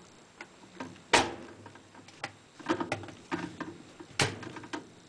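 Hard plastic clicks and knocks as a fabric softener dispenser cup is pushed down and seated on top of a top-loading washer's agitator. The loudest knock comes about a second in, a cluster of smaller clicks follows, and another knock comes near four seconds.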